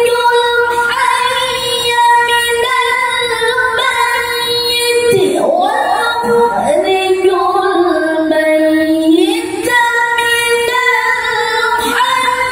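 A male qari chanting Qur'an recitation (tilawah) in a high, sustained voice: long held notes with ornamented turns, dipping in pitch around the middle and climbing back up.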